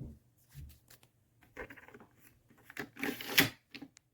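Spinner carry-on suitcase being handled: a few scattered plastic clicks and rattles, with a louder clattering clunk about three seconds in.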